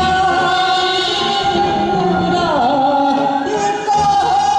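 Korean folk song (minyo) sung by women's voices into microphones over instrumental accompaniment, with a long held note that dips in pitch partway through.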